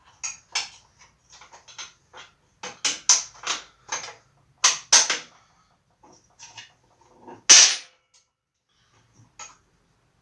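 Small metal parts clinking and tapping against each other as a home-made motorcycle brake rod and its fittings are put together: an irregular run of sharp clicks, the loudest a little after seven seconds in.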